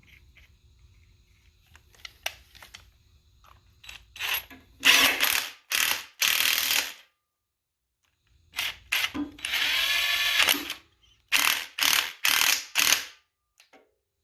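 DeWalt DCF889 20-volt cordless 1/2-inch impact wrench tightening the 24 mm bolts on a car lift's base. It runs in short trigger bursts of hammering, most under a second long, with one longer run of about a second and a half in the middle.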